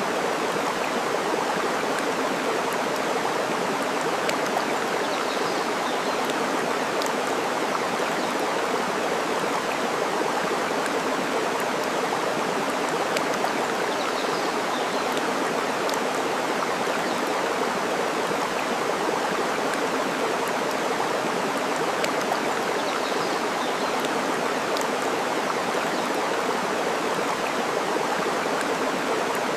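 Steady rush of flowing water, with occasional sharp crackles from a burning wood fire and a few faint high bird chirps.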